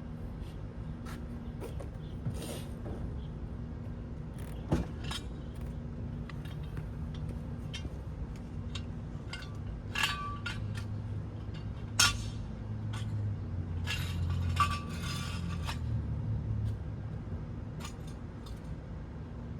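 Scattered metallic clinks and knocks from hand tools and small metal parts being handled during wheel work, the sharpest about five, ten, twelve and fifteen seconds in, over a steady low hum.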